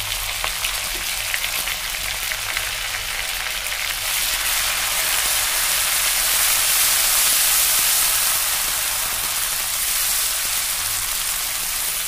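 Ginger, garlic and green chilli paste sizzling as it fries in hot oil in a kadhai, stirred with a spatula: a dense crackling hiss that grows louder about four seconds in, then eases off near the end.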